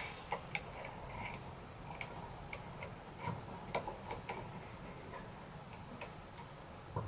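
Light, irregular clicks and ticks of circlip pliers and a circlip being worked into the bore of a motorcycle clutch master cylinder held in a vise.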